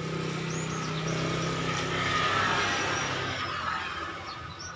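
A motor vehicle passing by, its engine hum and road noise swelling to a peak about halfway through and then fading. A few faint high bird chirps sound over it.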